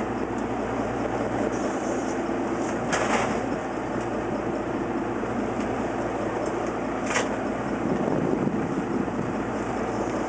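Fishing boat's engine running steadily underway, a continuous drone with water and wind noise. Two short, sharp noises break in, about three and seven seconds in.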